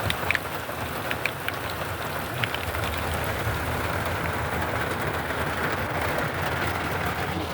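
Heavy rain falling steadily, with scattered sharp drop hits in the first couple of seconds.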